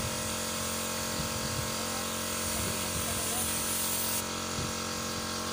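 Paint spray gun hissing as it sprays black paint onto a truck trailer's steel chassis, over a steady motor hum; the hiss eases off about four seconds in as the trigger is let go.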